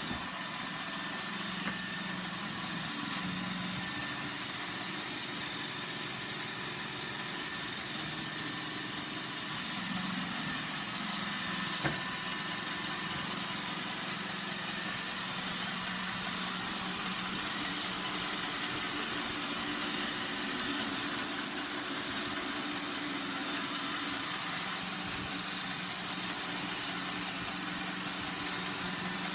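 iRobot Roomba 960 robot vacuum running: a steady whirring hum from its vacuum and brush motors over a wide hiss, with a few light knocks along the way.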